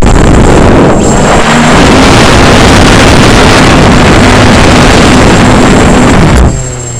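Brushless motors and propellers of a converted Syma X8C quadcopter, heard from its onboard camera: a loud, steady drone of motors and props with wind rush on the microphone. Near the end the sound drops suddenly and the motor pitch slides, as the motors cut out; the owner believes the WiFi camera was jamming the receiver and making the motors start and stop.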